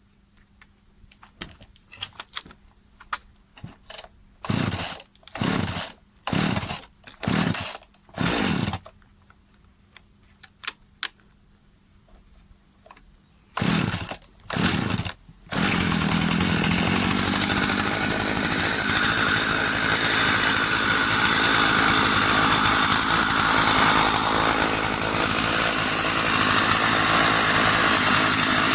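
Husqvarna 50 two-stroke chainsaw being pull-started: a string of short bursts as the cord is pulled, the engine firing briefly and dying away each time. After a pause and three more pulls it catches about halfway through and runs steadily.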